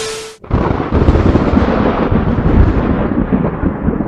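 A short burst of hiss with a steady tone cuts off about half a second in. Then a loud, deep rumble starts and slowly fades.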